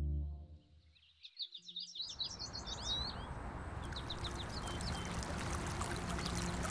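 A held music chord fades out at the start. Small birds then chirp and trill rapidly for a couple of seconds, and from about two seconds in a small stream trickles steadily over rocks, with a few more chirps and a faint low hum underneath.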